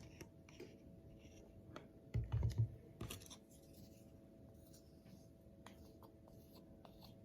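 Spoon clicking and scraping against a container while ingredients are spooned out, with a few louder low knocks about two seconds in.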